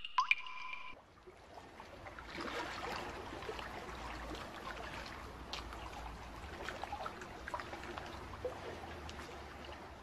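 Sound effect of trickling, dripping liquid with many small drip clicks, under an animated logo sting. It opens with a short ringing tone in the first second.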